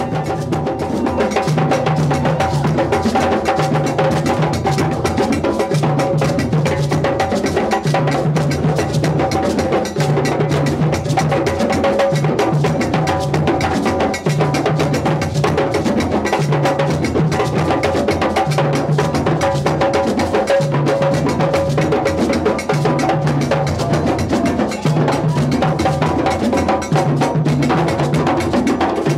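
A group of hand-played djembe drums in a fast, continuous rhythm, with a low drum pulsing under it about once a second.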